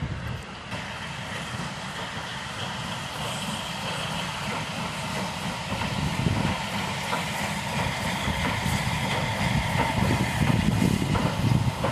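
Steam-hauled passenger train running slowly past: a steady rumble of the locomotive and the coaches' wheels on the rails, slowly growing louder.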